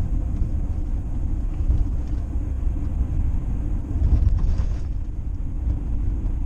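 Steady low rumble of a vehicle on the move, engine and road noise, with a brief louder swell about four seconds in.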